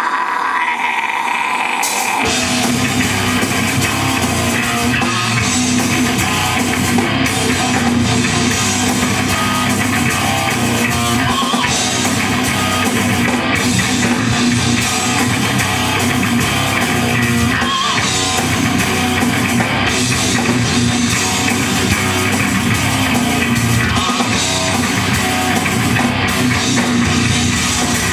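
Live death metal band playing loud: distorted electric guitars, bass and drum kit. A held note rings alone at first, and the full band with drums and bass comes in about two seconds in.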